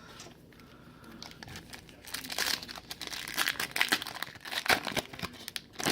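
Foil wrapper of a trading card pack crinkling and tearing as it is opened, a dense crackling that starts about two seconds in.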